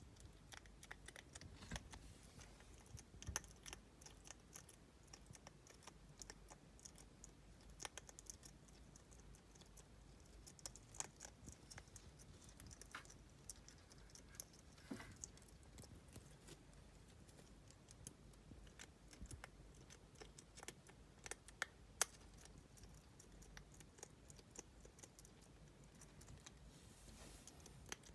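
A pet hedgehog making faint, irregular small clicks and scratching sounds, with a few sharper ticks.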